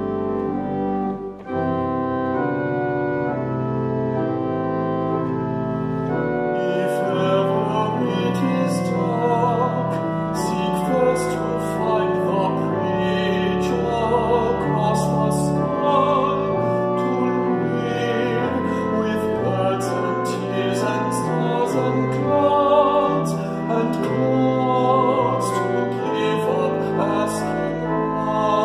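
Pipe organ playing held chords, and about six seconds in a man begins singing over it with a wavering, full voice.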